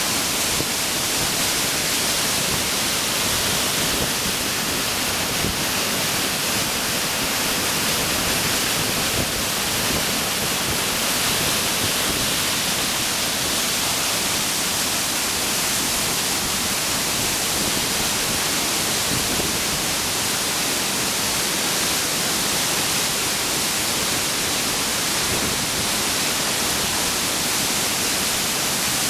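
Waterfall running with cold snowmelt water: a steady, unbroken rush of falling water.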